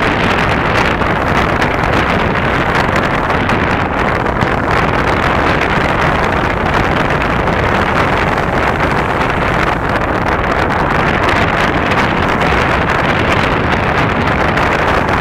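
Steady rushing noise of wind buffeting the microphone, mixed with surf breaking on a sandy beach, with no clear firework bangs standing out.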